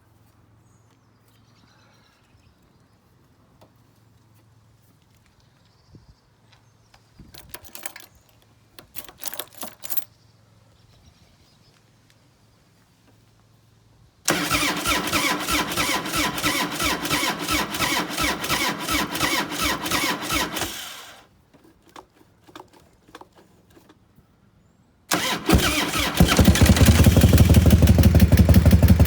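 1993 Harley-Davidson V-twin motorcycle engine being started: the starter cranks it for about six seconds without it catching, then on a second try about 25 seconds in it fires and runs with a loud, deep, even beat.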